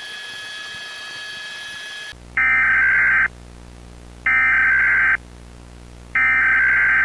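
Emergency Alert System SAME header: three loud bursts of warbling digital data tones, each about a second long with a second's pause between, over a low hum. The bursts begin about two seconds in, after a steady high electronic tone cuts off. They mark the start of an emergency alert broadcast.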